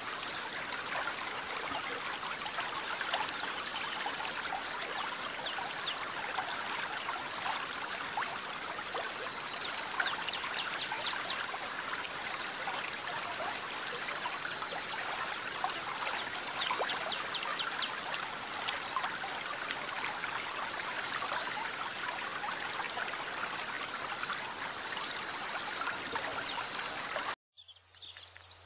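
Steady outdoor background hiss with birds chirping now and then, including a couple of quick chirping trills. Near the end the hiss cuts off abruptly, leaving a much quieter background.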